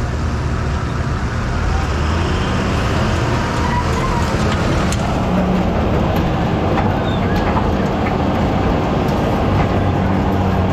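Fendt 926 Vario tractor's six-cylinder diesel engine running steadily close by.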